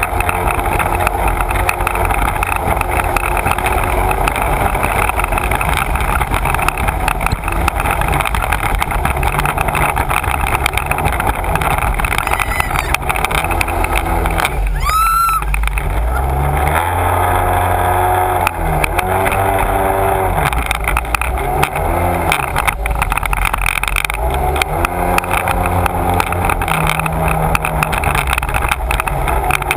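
Sea-Doo personal watercraft's engine running at speed, with the hiss of spray and water rushing past the hull. The engine note rises and falls several times in the second half as the throttle changes.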